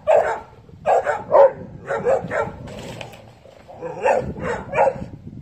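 Dog barking in short bursts: about eight barks in three bunches of two or three.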